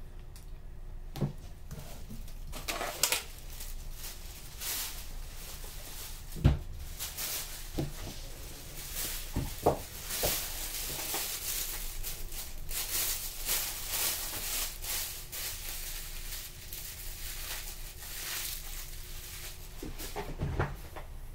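Close-up rustling and crinkling as things are handled on a wooden desk, with several light knocks of objects set down, the loudest about six seconds in, over a faint steady hum.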